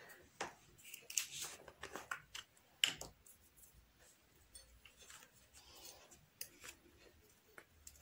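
Faint, irregular clicks and light scrapes of a small plastic dye jar and spoon being handled, with one sharper click about three seconds in.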